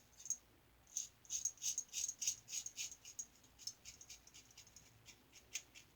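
Star Super Six single-edge safety razor with a Gem blade scraping through lathered stubble in short quick strokes: a rapid run of crisp scratches, about three a second.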